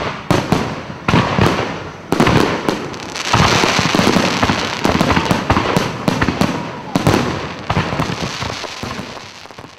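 Fireworks going off: a series of sudden bangs, each trailing off before the next, fading out near the end.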